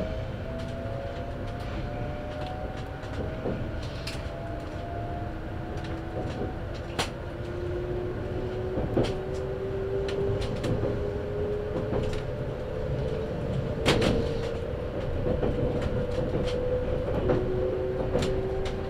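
Interior sound of a 257 series limited-express electric train in motion: low rumble of wheels on rails with an electric motor whine that climbs slowly in pitch as the train gathers speed. Scattered sharp clicks and knocks, the loudest about 14 seconds in.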